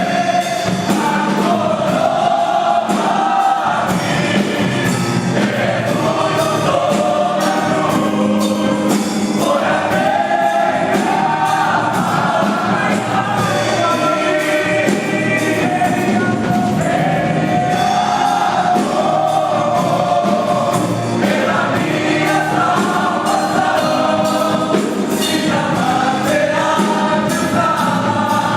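Christian gospel song: a choir of voices singing a melody over band accompaniment with a steady beat.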